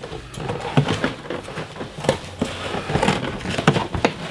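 Corrugated cardboard box being handled and cut with scissors to enlarge an opening: irregular scraping, crackling and knocks of cardboard and scissor blades.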